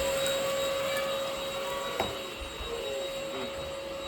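INSE cordless stick vacuum running, a steady motor whine over the rush of suction, with a single knock about two seconds in.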